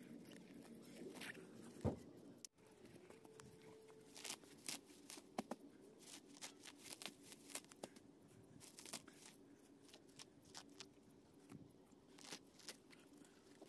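Faint tearing and crunching of weeds being pulled up by their roots from garden soil, with scattered small clicks and scrapes.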